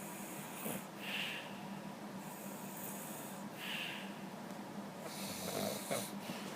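A man snoring in his sleep, three breaths about two and a half seconds apart.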